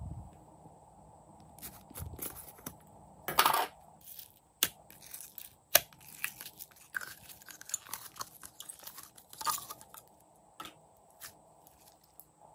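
Slime being handled: sticky crackling and squelching as pink slime is squeezed out of a jar and worked by hand, with scattered sharp clicks and one louder crackling rush about three seconds in.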